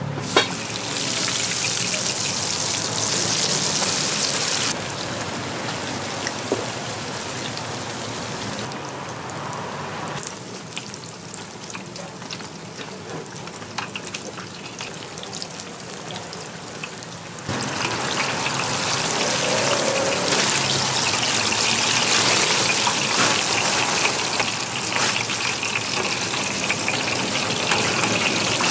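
Donuts deep-frying in a large pot of hot oil: a dense, steady crackling sizzle. The level steps up and down a few times.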